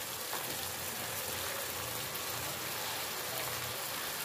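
Tomato and onion masala sizzling and bubbling in oil in an aluminium pot on the stove, a steady hiss.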